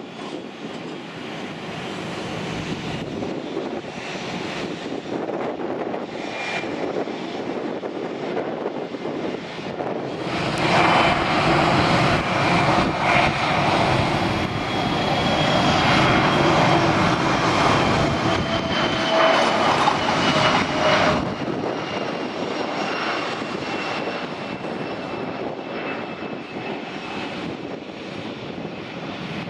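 Bombardier Challenger 650 business jet's twin GE CF34 turbofans at takeoff thrust: a steady jet rumble that grows much louder about ten seconds in as the jet rolls down the runway, with a high whine slowly falling in pitch, then easing off as it climbs away.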